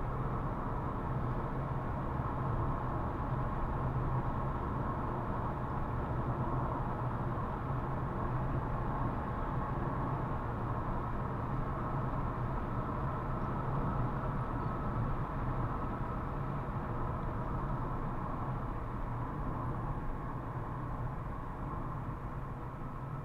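Steady engine and tyre road noise inside a car's cabin, cruising at about 75–80 km/h on a country road, easing slightly as the car slows near the end.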